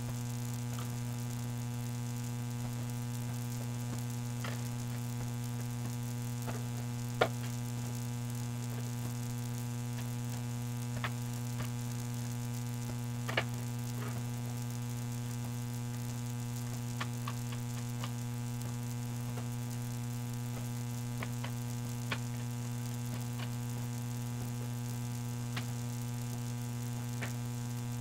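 A steady electrical mains hum, with a few faint, scattered clicks of a small screwdriver and screws on a laptop hard disk's metal caddy as the drive is unscrewed from it.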